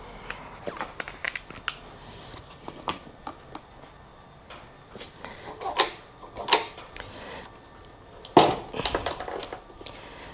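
Scattered clicks and knocks of hand tools and parts being handled while a motorcycle's side cover is worked off, with a few louder knocks about six seconds in and again near eight and a half seconds.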